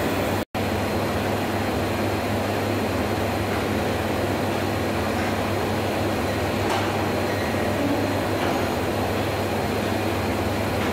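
Tekno Stamap Croymat 12000 croissant machine running: a steady mechanical hum of its drives, rollers and conveyor, broken by a momentary dropout about half a second in.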